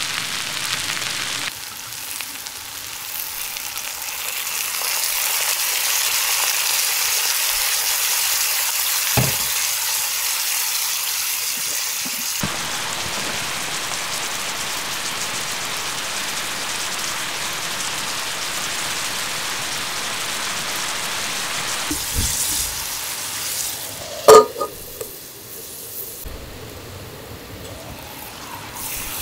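Mushrooms sizzling and frying in a steel skillet over a wood fire: a steady hiss that shifts in level a few times. There is a single knock partway through, and one sharp clink near the end.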